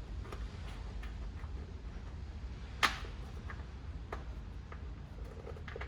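Scattered light clicks and taps from hands working on plastic car trim and parts, with one sharp click a little before the middle, over a low steady rumble.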